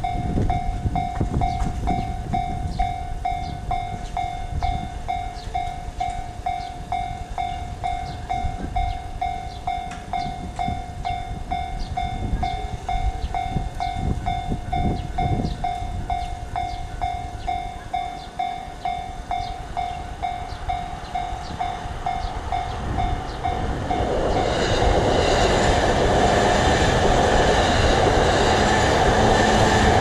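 Japanese railway level-crossing warning bell ringing in a steady, quick repeating ding. About 24 seconds in, an electric commuter train passes through the crossing and its running noise grows louder than the bell.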